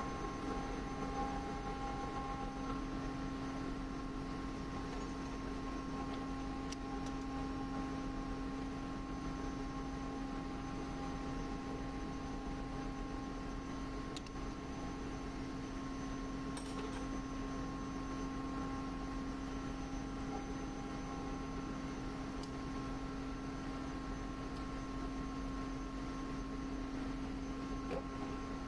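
Steady machinery hum, a constant low drone with a few steadier higher tones above it, as of an electric motor running, with a few faint ticks.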